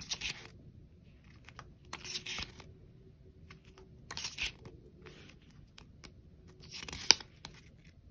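Paper rustling as printed K-pop merch is handled and leafed through: four short rustles about two seconds apart, with small clicks and a sharp tap about seven seconds in.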